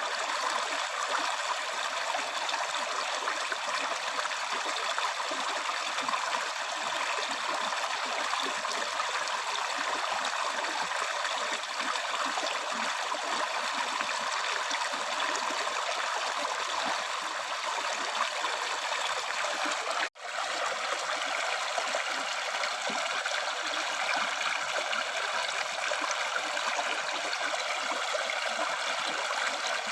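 River stream water flowing steadily, a continuous splashing rush with little deep rumble. It cuts out for an instant about twenty seconds in, then carries on unchanged.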